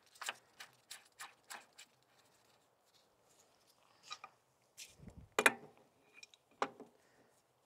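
Light clicks and taps of hand and tool on a hydraulic hose fitting as it is threaded and snugged back onto a mini excavator's boom. A quick run of clicks, about three a second, is followed by a pause and then a few scattered clicks, the loudest about five and a half seconds in.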